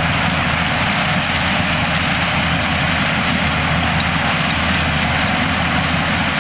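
Bulldozer's heavy diesel engine running steadily at constant speed: a low, even drone with a broad hiss above it.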